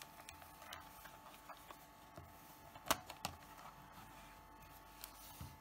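A plastic compact 35mm camera, a Minolta F10BF, being handled: soft taps and rubbing, then a sharp click about three seconds in and a second click just after, as the back-cover latch is released and the film door swings open.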